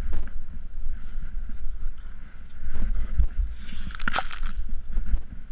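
Deep powder snow crunching and shifting around a buried snowboard, under low rumbling wind and handling noise on an action camera's microphone. A louder, hissing crunch of snow comes about four seconds in.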